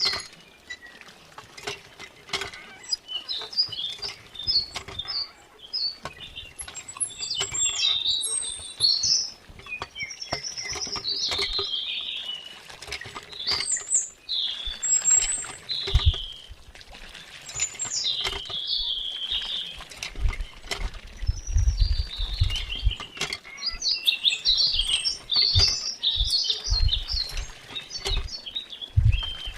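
Birds chirping over and over in short, quick calls, mixed with many small clicks and taps. Low thumps come in a few clusters in the second half.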